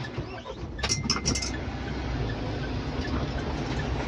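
Mahindra Thar running steadily with a low rumble while being driven off-road, with a short cluster of sharp clinks about a second in.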